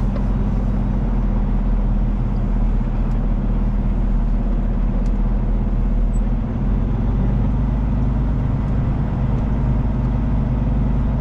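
Tractor-trailer's diesel engine running steadily as the truck drives, heard from inside the cab: a steady low drone.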